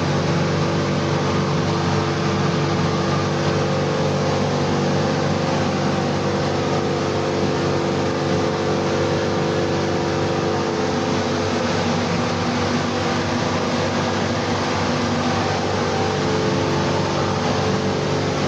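Paint spray booth's ventilation running steadily: an even rush of air with a constant low hum.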